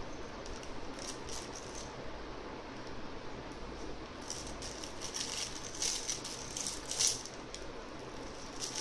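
A Lamaze Freddie the Firefly soft baby toy being handled by an infant: scattered crinkling and rattling, busier in the second half, with the loudest crackle about seven seconds in, over a steady low hum.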